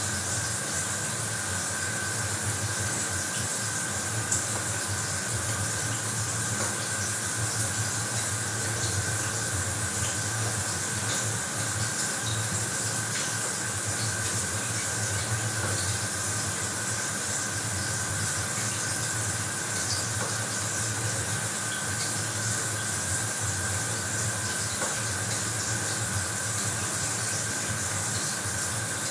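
Shower running steadily, water spray hissing down with a faint high whistle held underneath.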